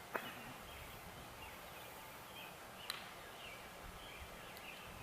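Quiet outdoor background with faint, scattered bird chirps, and two brief clicks: one just after the start and one about three seconds in.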